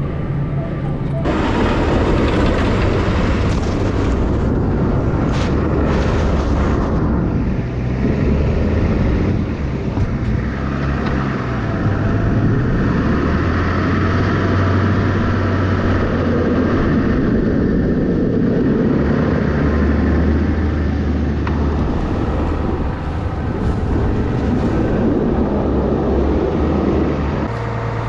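Farm tractor engine working under load, its pitch shifting up and down, with a steady rushing noise over it as it clears drifted snow.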